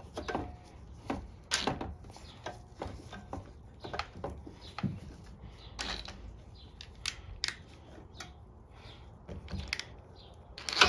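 Irregular light clicks and knocks of a socket and small metal parts being handled and fitted while carburetor bolts are worked on the mower, with a sharper knock near the end.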